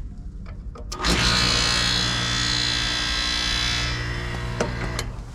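Air-conditioner condensing unit switching on with a click about a second in, then its compressor starting with a steady electrical hum and a hiss that fades a few seconds later. No fan sound comes with it: the condenser fan motor is rusted solid and does not turn.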